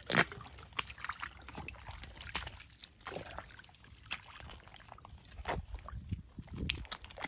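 Footsteps squelching in soft, wet mangrove mud: irregular wet smacks and sucking sounds as feet sink in and pull free, the sharpest just at the start.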